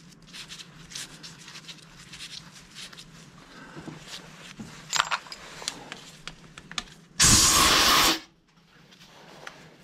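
Small metal tools and parts clinking and scraping on a workbench, then a loud hiss lasting about a second.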